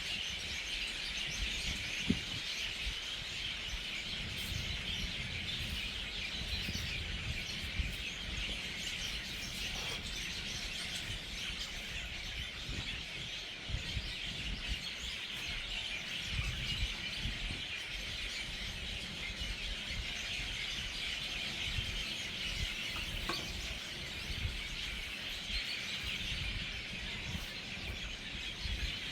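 A dense, unbroken chorus of hundreds of birds chattering and calling together as they settle into their evening roost.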